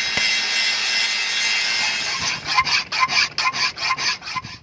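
Hand tool scraping in rapid back-and-forth strokes: a steady rasping for about two seconds, then quick separate strokes about four or five a second.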